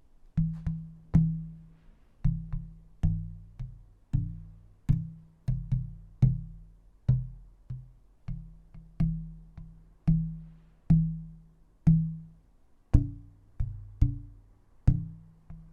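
A piece of burled wood struck over and over, about two dozen knocks at an uneven pace, each ringing briefly with a low tone that dies away. The wood is being tapped to find its pitch, which sounds close to E.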